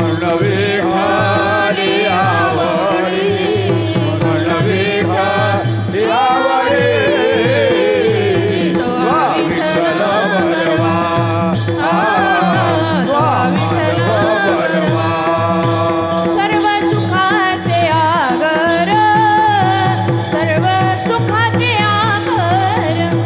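Woman singing a Marathi devotional abhang in long, sliding melodic phrases over a steady tanpura-style drone, with small brass hand cymbals (taal) keeping time.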